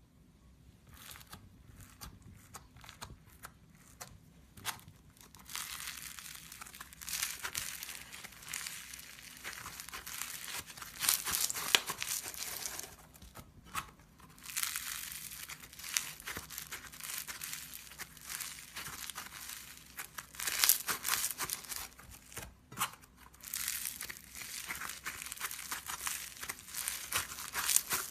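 Crunchy slime being squeezed and pressed by hand: a dense crackle of many small pops and crunches, faint at first and fuller from about five seconds in, dropping out briefly twice.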